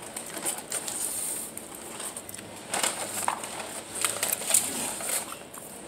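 A person chewing french fries close to the microphone, with irregular short mouth clicks.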